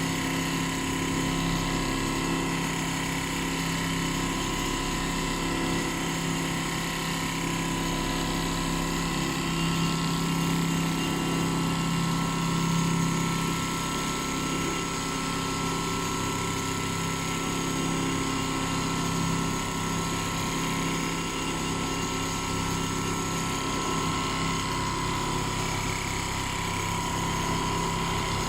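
Large computerized multi-needle quilting machine running steadily as it stitches, a constant mechanical hum with a steady high whine over the rapid chatter of the needle drive.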